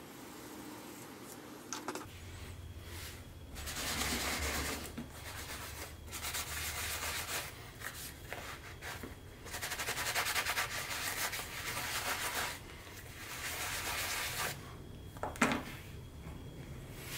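Sandpaper rubbing on leather in four passes of one to three seconds each, with a sharp click near the end.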